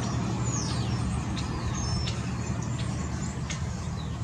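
A steady low rumble, like a vehicle or traffic, with a few short high chirps and falling whistles over it, like birds calling.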